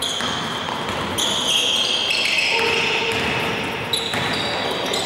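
Steady background noise of a basketball game in play in a large gym, with a few held high-pitched tones that shift in pitch.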